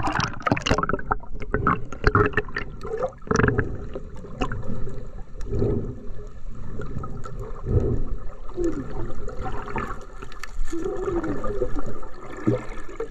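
Underwater sound picked up by an action camera in its waterproof housing as it dives: a burst of splashing and bubbles as it goes under, then muffled gurgling and bubbling with dull low thumps.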